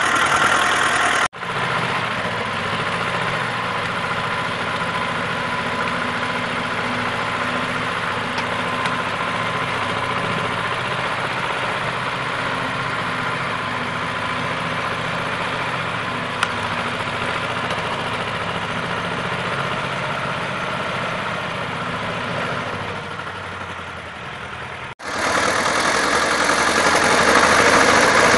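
Vladimirets T-25 tractor's two-cylinder air-cooled diesel running steadily while it hauls a loaded log trailer over soft ground. The sound drops out briefly twice, about a second in and near the end.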